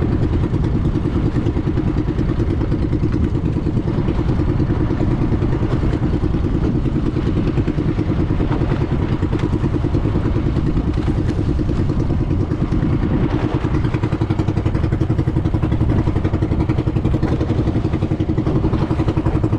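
Small outrigger fishing boat's (bangka) engine running loud and steady under way, a rapid even putter with no change in speed.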